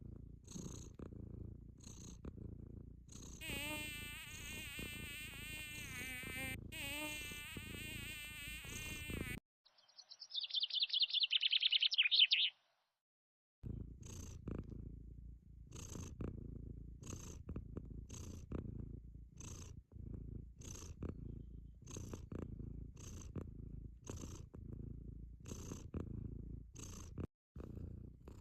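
Sphynx cat purring close up: a low rumble that pulses with each breath. About three seconds in, a wavering buzz joins it for some six seconds. Then the purring drops out for a few seconds while a short high warbling sound plays, and the purring comes back.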